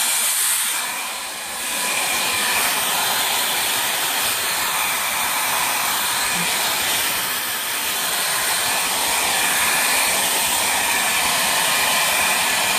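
Handheld hair dryer blowing steadily, dipping briefly in level about a second in.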